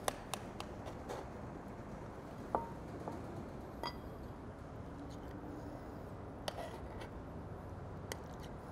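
A metal spoon scooping dessert out of a cast iron skillet and into a ceramic bowl: a few light clicks and clinks over faint room tone, one clink about four seconds in ringing briefly.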